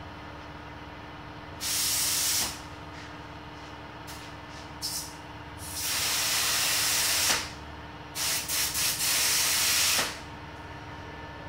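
Iwata Airgunza spray gun with a 1.3 mm nozzle hissing in bursts as the trigger is pulled, spraying clear coat onto a car: a short pass about one and a half seconds in, brief spurts around four to five seconds, a longer pass around six seconds, then a run of quick stuttering spurts ending near ten seconds. A steady hum runs underneath.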